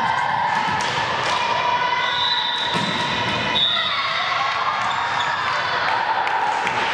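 A volleyball being struck and hitting the hall floor during a rally, a few sharp echoing knocks, under drawn-out high-pitched cheering and shouting from young voices.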